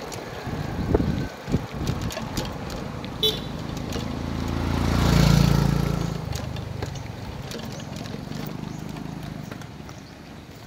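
A small motorcycle passes close by, its engine rising to a peak about five seconds in and then fading as it pulls away ahead. Around it, short clicks and rattles of a bicycle riding over cracked concrete.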